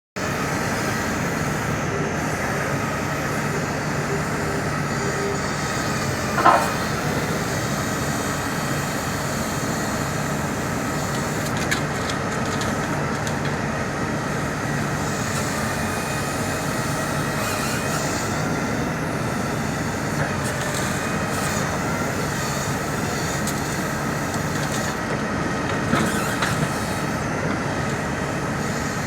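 Tree-debris pick-up truck running steadily with a faint whine over its engine, one loud knock about six seconds in and a few clunks near the end.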